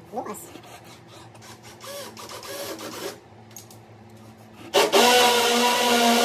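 Electric drill boring into the wall. It starts suddenly about three-quarters of the way through and runs loud and steady.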